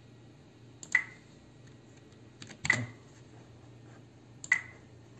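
Three sharp computer mouse clicks, spaced roughly a second and three-quarters apart, over a faint steady low hum.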